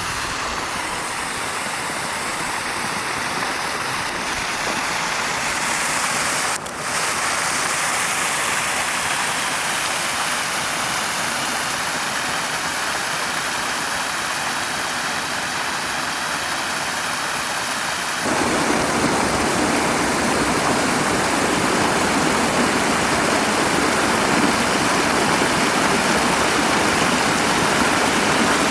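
Waterfall: a steady rush of falling water that grows louder and fuller in the low end about 18 seconds in.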